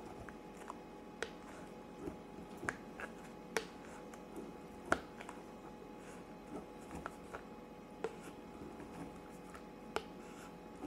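A kitchen knife cutting feta cheese into cubes, its blade tapping down through the soft cheese onto the plastic tray at irregular intervals, about one tap a second.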